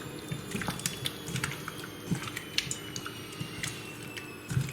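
Hands working raw chicken wings through a wet peri peri marinade: irregular sticky clicks and squelches, a few a second.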